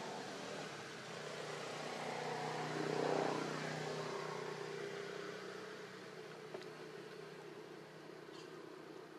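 A motor vehicle passing by: its engine and road noise grow louder to a peak about three seconds in, then fade away.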